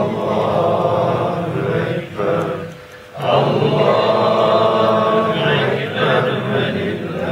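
A man's voice chanting Quranic recitation in long, melismatic Arabic phrases, with a short breath pause about a third of the way in before the chant resumes.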